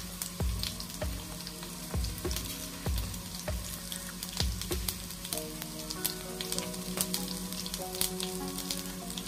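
Hot oil sizzling in a small pan as a tadka of mustard seeds, cumin, garlic cloves and dried red chillies fries, with sharp crackles and pops as the seeds splutter, the sign that the oil is hot enough.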